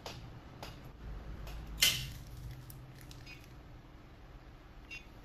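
A few sharp clicks and light taps of small dental instruments, the loudest about two seconds in, over a low steady hum.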